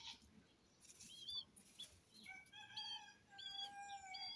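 Young Silkie Serama chickens calling faintly: short high chirps now and then, and from about halfway a longer, steady call held for about two seconds.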